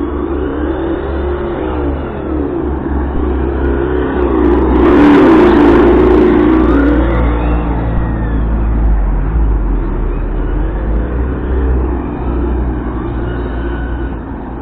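Hobao Hyper GT-B 1/8 RC car running on tarmac, its ESS engine-sound module playing a simulated engine that revs up and down again and again. It is loudest about five seconds in, with a brief hiss as it passes close.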